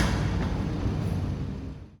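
A car's engine and exhaust fading as it drives away, with one sharp exhaust pop right at the start.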